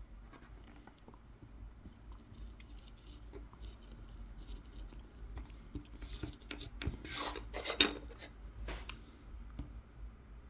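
Tip of a Mora 106 knife cutting short lines into the surface of a wooden spoon, a series of quick scratching strokes, with a few louder ones about six to nine seconds in.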